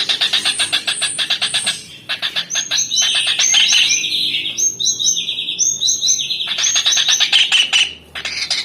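Kingfisher calling: fast trains of sharp, high notes, roughly ten a second. There is a brief break about two seconds in and another just before the end, with some falling notes in the middle.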